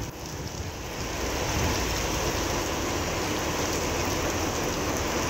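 Steady rain falling on a wet street and pavement. It grows louder over the first second or so, then keeps up an even hiss.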